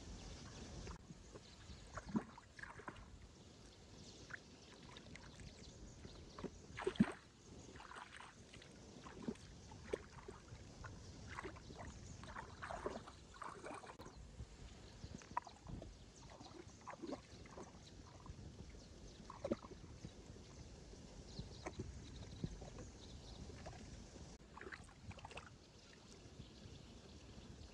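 Water sloshing, with irregular small splashes every second or so over a low, steady wash; the loudest splash comes about seven seconds in.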